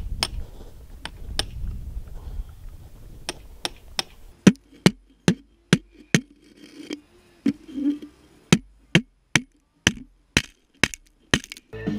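Hammer striking a hand-held steel chisel into rock: sharp metallic strikes, a few scattered at first, then a steady run of about two to three a second.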